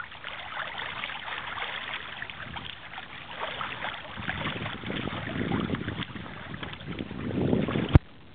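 Water rushing and splashing along the hull of a sailboat as it starts to move in light air, with gusts of wind on the microphone. A sharp click comes near the end, after which the sound drops away abruptly.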